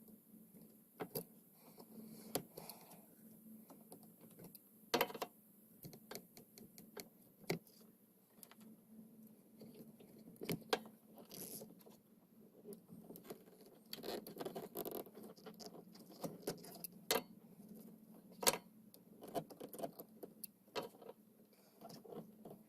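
Hand tools and small metal parts being handled while a starter solenoid is fitted to an ATV: scattered clicks, taps and light metallic rattles, with a few sharper knocks.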